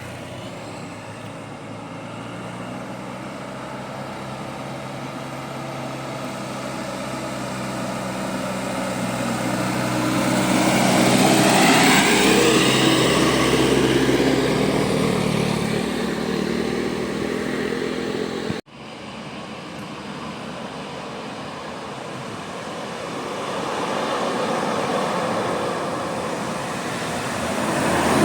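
Engine noise of a road vehicle approaching and passing close, loudest about twelve seconds in. The sound breaks off abruptly about two-thirds of the way through, then another vehicle approaches near the end.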